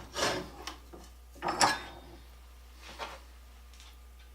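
Steel treadle-grinder parts being handled and shifted on the bench: a few short scrapes and clunks of metal, the loudest about a second and a half in, a faint one near the end.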